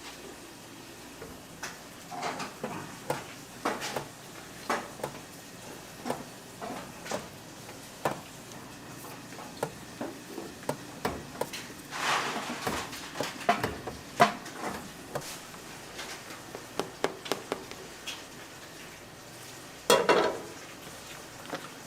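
Metal cooking utensils knocking and clanking irregularly against pots and pans, with food sizzling in a hot pan. The sizzle swells about twelve seconds in, and there is a louder burst of sizzling near the end.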